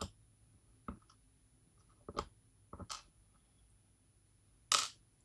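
Light, scattered clicks of small lock parts being handled as springs, drivers and pins are taken out of a Goal D9 padlock's pin chambers one by one, with a louder, slightly longer click near the end.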